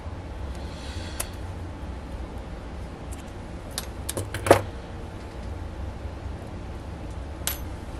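Scissors and crafting materials handled on a tabletop: a few scattered sharp clicks and taps, the loudest about four and a half seconds in, over a low steady hum.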